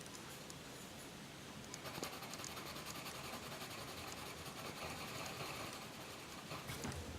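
Soft 4B graphite sketching pencil scratching across paper in quick strokes. It starts about two seconds in and stops shortly before the end.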